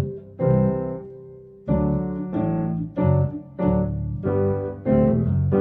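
Piano music: notes and chords struck one after another, a new one every half second or so after a longer held note near the start, each ringing and fading.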